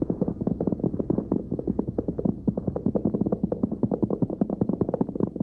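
Radio-drama sound effect of horses galloping: a rapid, steady clatter of hoofbeats.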